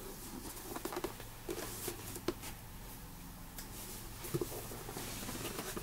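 Handling noises: a cardboard box being moved and a hand rummaging in a fabric storage box, with light scattered knocks, clicks and rustling.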